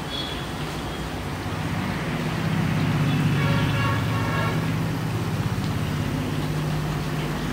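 A passing road vehicle's engine rumbles, swelling and then easing off, and a horn sounds for about a second in the middle. Under it runs the steady hiss of chicken pieces frying in hot oil.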